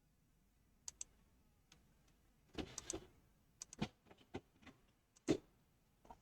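Scattered, irregular clicks of keys being typed on a computer keyboard, a few at a time, with the loudest stroke a little past the middle.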